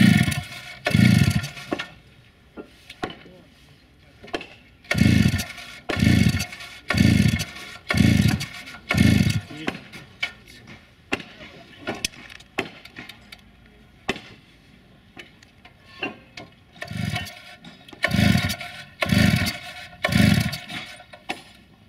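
Stihl two-stroke cut-off saw being pull-started: about a dozen quick pulls of the recoil starter in three runs, about one a second, each a short burst of the engine cranking over without catching, a hard start.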